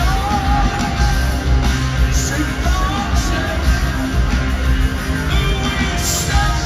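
Live rock band playing loudly in an arena: heavy bass and drums under electric guitar.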